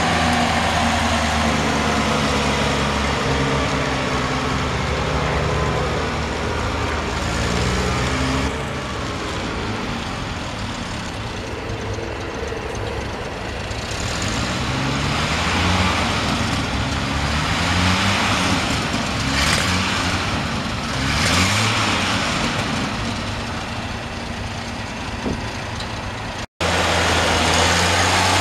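Hyster pneumatic-tire roller's engine running as the machine is driven around, its pitch rising and falling again and again through the middle as the engine speed changes. There is a brief drop-out near the end.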